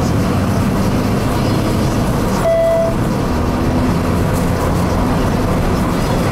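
2006 Opel Astra Coupe Bertone Edition's 2-litre engine running steadily at road speed, heard inside the cabin with tyre and road noise. A short beep sounds once, about two and a half seconds in.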